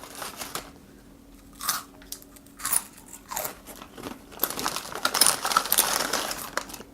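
Plastic packaging crinkling and rustling in short bursts as it is handled, with a near-quiet pause about a second in and denser crinkling in the second half.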